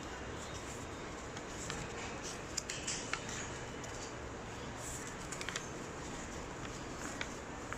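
A sheet of paper being folded and creased by hand: short crinkles and taps over a steady background hiss.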